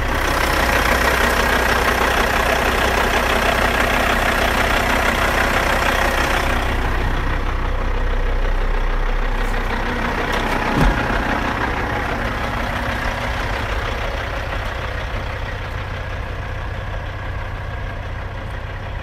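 2006 Kenworth T800 heavy truck's diesel engine idling steadily. Louder and brighter at first, close to the open engine bay, then softer and duller after about seven seconds. A brief thump about 11 seconds in.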